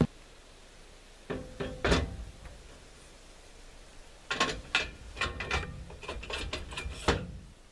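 Knocks and metallic clanks of square steel tubes being handled and set into their sockets on a steel sawmill carriage: a few knocks about a second and a half in, then a run of clanks in the second half.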